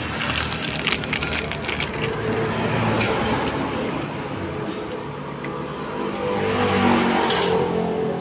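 Crinkling of plastic packaging as a replacement motorcycle cam chain tensioner is unwrapped, in the first two seconds. Under it runs a steady vehicle engine, which swells to its loudest about seven seconds in.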